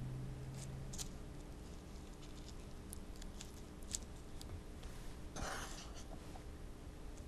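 Faint handling sounds of a rice paddle scooping and pressing sushi rice onto a nori sheet on a bamboo rolling mat: scattered soft clicks and taps, with one brief rustle about five and a half seconds in.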